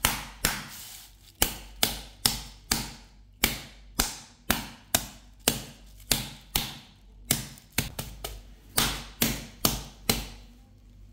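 Metal meat mallet pounding a raw chicken half through a plastic sheet, a steady run of heavy thuds about two a second that stops near the end, beating and breaking up the meat to tenderize it.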